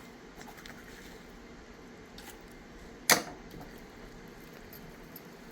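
Quiet knife work on a raw chicken leg, with faint small ticks and one sharp knock about three seconds in.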